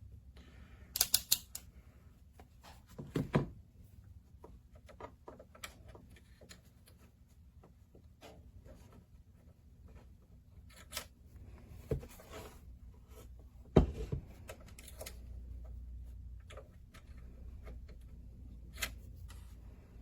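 Scattered clicks, taps and a few knocks from a multimeter and its test leads being handled and connected to a bench power supply's output, with a quick cluster of sharp clicks about a second in.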